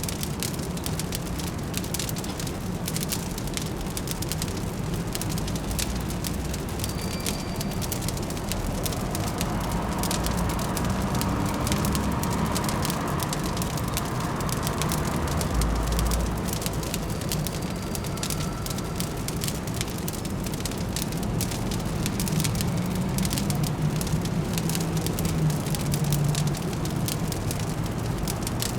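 Fireplace crackling with dense small pops, over a steady low hum of distant city traffic.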